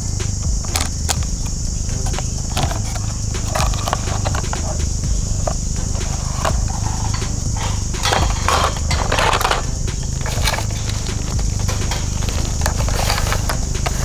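Irregular clicks and light knocks of hard plastic toy parts being handled, over a steady low rumble and a steady high hiss.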